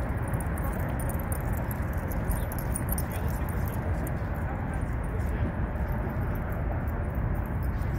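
Steady outdoor background rumble and hiss, heaviest in the low end, with no distinct events standing out.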